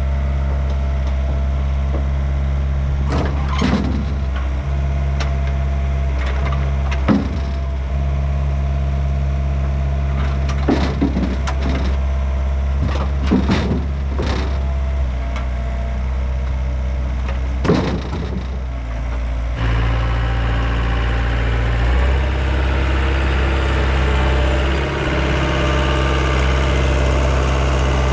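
Yanmar B50 mini excavator's diesel engine running steadily while it handles tree debris, with a series of sharp knocks and cracks. About twenty seconds in, the engine note shifts and a hiss rises.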